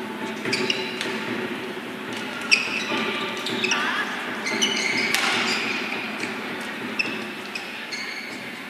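Badminton rally: rackets striking the shuttlecock in quick exchanges of sharp cracks, mixed with the short squeaks of players' shoes on the court floor.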